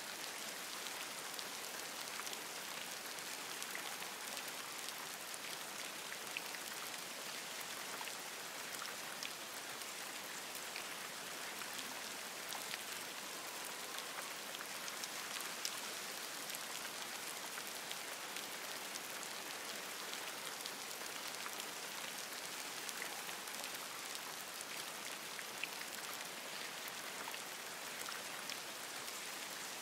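Steady rain falling on forest leaves: an even hiss, with individual drops ticking sharply here and there.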